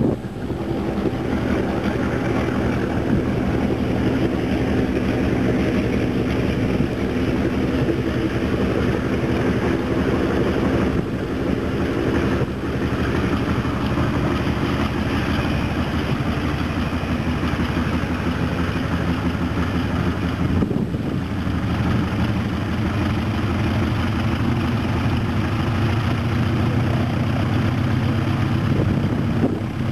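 A Stearman PT-27 Kaydet's seven-cylinder Continental radial engine running steadily at low power on the ground, propeller turning. The note dips briefly a few times.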